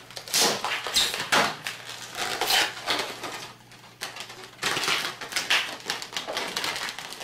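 Orange latex twisting balloons rubbing and squeaking under the hands in a string of short, irregular bursts as the leftover end is tied off and pulled between the balloon segments.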